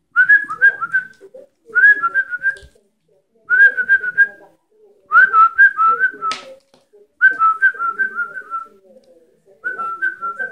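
Pet bird whistling a short phrase of three to five quick notes, repeated about six times with brief pauses between, with softer chattering beneath.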